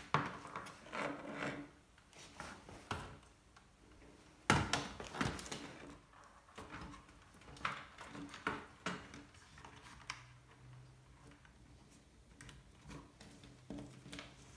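Plastic wiring connectors and the wire loom of a Bosch dishwasher being handled and plugged back in: scattered plastic clicks and rubbing, with the loudest knock about four and a half seconds in.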